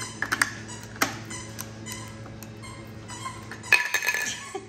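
Light clicks and taps of small hard parts being handled at a rice cooker, with a louder cluster of ringing clinks a little under four seconds in.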